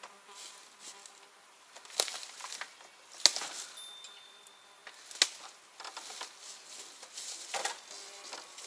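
Flying insects buzzing faintly, broken by a few sharp clicks and knocks, the loudest about two, three and five seconds in.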